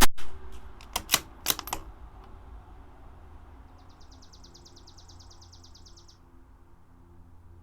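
A CZ 457 bolt-action rifle fires a single .22 LR rimfire shot right at the start. About a second later comes a quick run of metallic clicks as the bolt is worked to eject the case and chamber the next round. In the middle a rapid high trill runs for about two and a half seconds.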